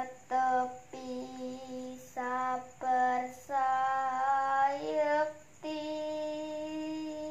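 A young woman's solo voice singing Javanese macapat verse unaccompanied: short sung phrases broken by breaths, an ornamented wavering passage around the middle, then one long held note near the end.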